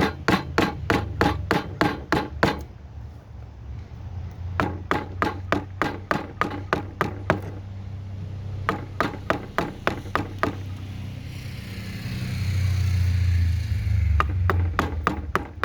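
Runs of quick, even knocks, about three a second, as a mallet drives a carving chisel into a cedar block, stopping briefly between runs. A rushing noise swells and fades about three-quarters of the way through.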